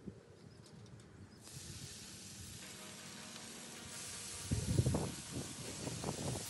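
Raw bacon strips sizzling as they are laid on a hot Blackstone griddle's flat top. The sizzle sets in about a second and a half in and grows louder about four seconds in, with a few low thumps near the end.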